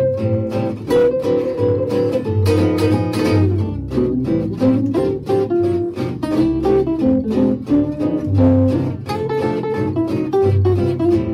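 Background music led by acoustic guitar, with quick plucked and strummed notes over a steady bass.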